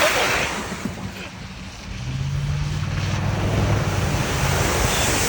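A vehicle engine running under heavy wind noise on the microphone; the engine's low hum comes up about two seconds in and settles slightly lower in pitch.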